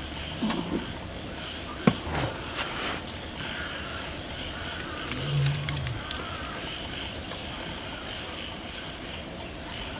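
Night insect chorus, crickets chirring steadily, with a few sharp clicks around two seconds in and again between five and seven seconds. A brief low sound comes about half a second in, and a louder, short low sound about five seconds in.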